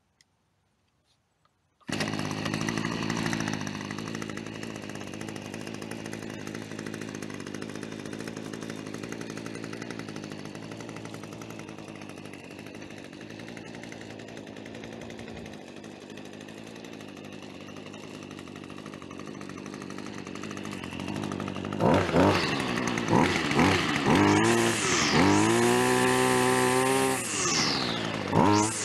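Ryobi two-stroke straight-shaft line trimmer engine comes in abruptly about two seconds in and idles steadily. Over the last several seconds it is revved up and down repeatedly, climbing to high revs and dropping back.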